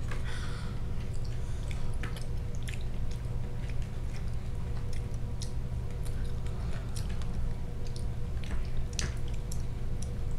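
Two toddlers chewing and smacking their lips as they eat, with many small wet clicks scattered throughout, over a steady low hum.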